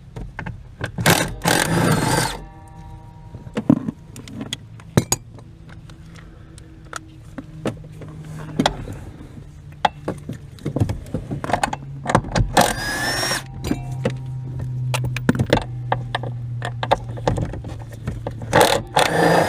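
Tools at work under a car's dashboard: metallic clicks, clinks and knocks, with three short bursts of a power tool, one about a second in, one past the middle and one at the end, while the steering column and air ducting are being unbolted.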